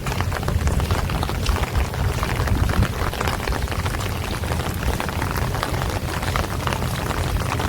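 Steady rain, with many close individual drops ticking on hard surfaces over an even hiss and a constant low rumble underneath.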